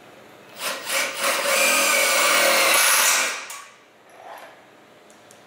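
A cordless drill drives a 3.5-inch self-drilling screw into a galvanized steel C-channel. It starts in two short bursts, then runs steadily for about two seconds while the drill point cuts through the steel, and stops near the middle.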